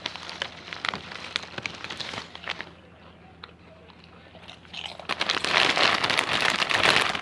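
Crunching of chips being bitten and chewed, then a louder crinkling and rustling from about five seconds in.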